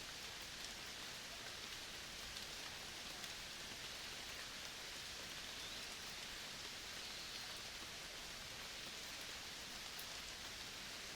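Steady natural forest ambience: an even, quiet hiss with faint scattered ticks.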